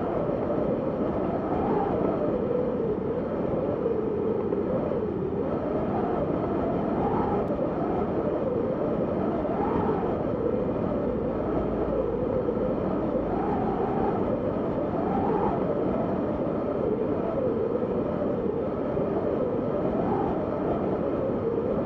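Howling wind in a snowstorm: a steady rushing noise with a whistling tone that rises and falls every second or two as the gusts come and go.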